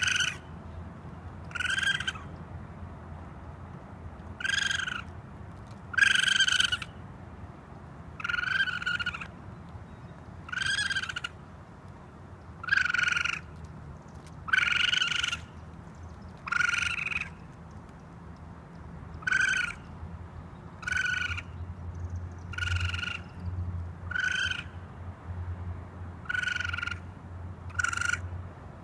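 Raccoon calling over and over: short, high-pitched calls of about half a second each, one every one and a half to two seconds, around fifteen in all.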